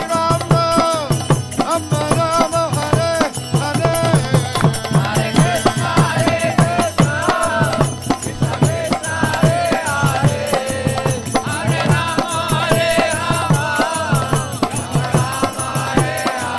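Kirtan music: voices singing a devotional chant over a quick, steady drum beat and clicking hand cymbals.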